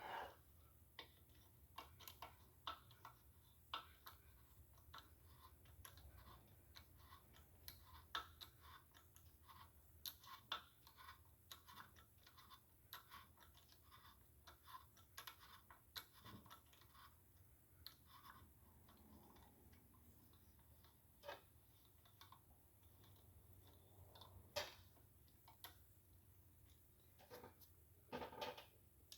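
Near silence with faint, scattered light clicks and ticks, irregularly spaced, and a slightly louder tick near the end; a low hum sits under it.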